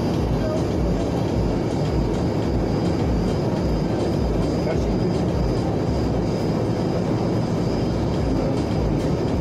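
Steady rumbling road and engine noise of a vehicle being driven, unchanging in level.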